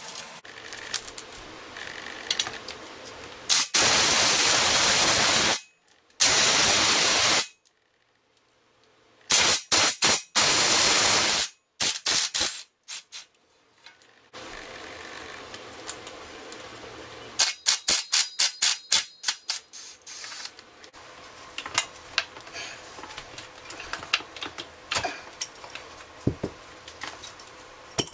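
Aerosol spray hissing in several bursts, two long ones about four to seven seconds in and a stuttering run around ten seconds, worked into a bicycle frame's bottom bracket shell. Between and after them come quieter scraping and rapid clicking of tools against the frame.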